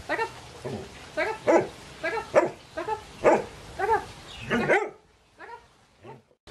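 A border collie barking in a quick run of about a dozen sharp barks, then two fainter barks near the end: the dog talking back at its handler during trick training.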